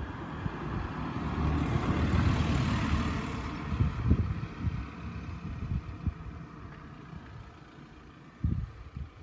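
Wind rumbling and buffeting on the microphone, with a vehicle passing that swells and fades about two to three seconds in.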